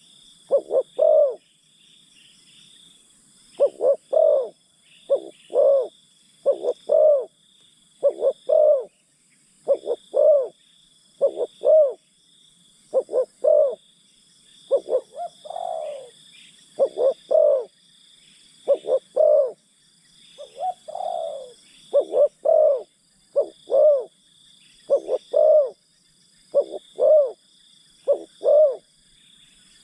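Spotted dove (terkukur) cooing over and over in short paired coos, with a couple of longer drawn-out coos in the middle; a steady high insect buzz runs behind.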